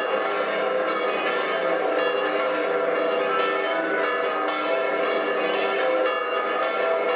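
Church bells ringing a continuous peal, many steady tones overlapping without a break.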